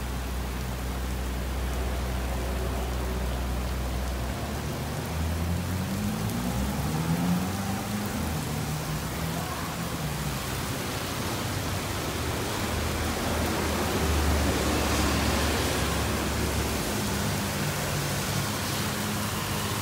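Heavy rain pouring steadily onto a street, with traffic on the wet road: an engine rises in pitch as a car accelerates about five seconds in, and the hiss swells about fourteen seconds in as more vehicles pass.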